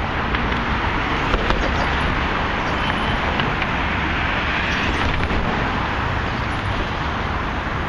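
Steady road traffic noise from cars driving on the Brooklyn Bridge roadway, an even rushing hum with no single vehicle standing out.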